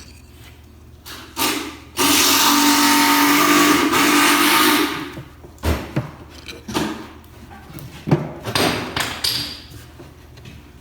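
A machine runs loudly and steadily for about three seconds, starting about two seconds in. Sharp wooden knocks and clicks follow as beehive frame parts are handled and pressed together.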